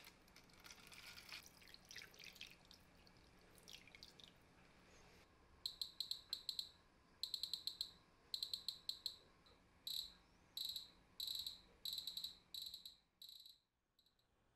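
Nickel-plating solution pouring and splashing into a plastic tub. From about five seconds in, a Riden RD6012 bench power supply gives about nine irregular runs of rapid high electronic beeps as its adjustment knob is turned.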